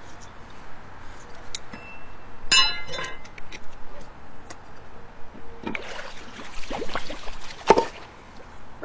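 Metal drain hook clinking and scraping against a submerged storm drain grate, with water splashing as the worker works it. A sharp knock near the end comes as the cover is pried loose and the ponded water starts to swirl down the drain.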